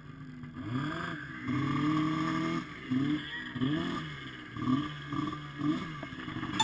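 Snowmobile engine revving: one longer held rev early on, then a string of quick blips whose pitch rises and falls about twice a second.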